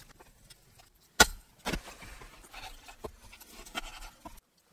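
Knife and wooden fork at work on sauce-glazed barbecue ribs on a board: a sharp knock about a second in, a second one half a second later, then lighter clicks and scrapes.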